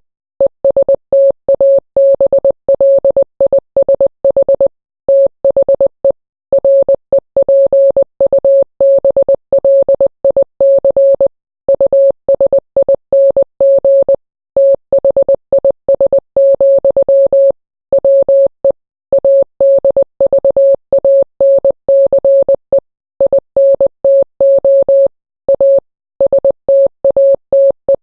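Morse code sent as a single steady mid-pitched beep, keyed on and off in short dots and longer dashes, with brief gaps between characters and longer gaps between words.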